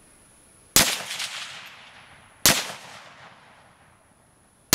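Single rifle shots from an AK-pattern rifle in 7.62×39 fitted with a ported muzzle brake: two sharp reports about 1.7 seconds apart, each trailing off in a long echo, and a third shot right at the end.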